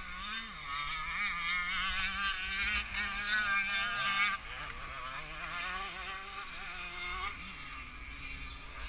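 Two-stroke motocross engines running at a low level, their pitch wavering up and down. The higher engine sound drops away about four seconds in.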